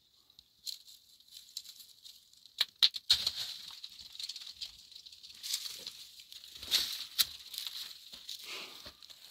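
Crackling and rustling, like dry brush or leaves being trodden or pushed through: a few sharp cracks about two and a half seconds in, then continuous irregular rustling, over a steady high hiss.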